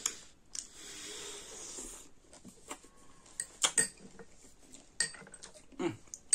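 Metal spoon and fork clinking and scraping against small glass bowls while mulberries are scooped and mixed: a string of separate sharp clinks, loudest about three and a half seconds in. A soft hiss fills the first two seconds.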